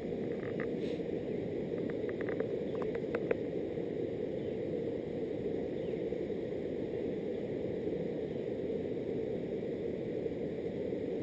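A river in flood rushing steadily, with a few light clicks in the first few seconds.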